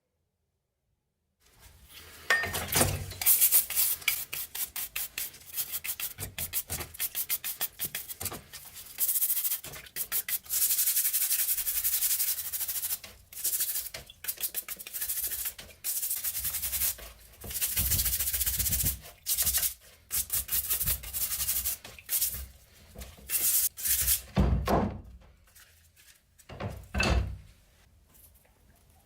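Rapid hand scrubbing strokes on rusty metal, in bursts with short pauses, with no motor running; a few heavier strokes come near the end.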